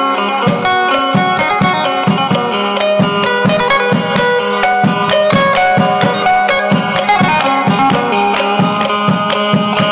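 Isan phin, a plucked lute, playing a lively melody over a held drone note, with a steady drum beat of about two strokes a second.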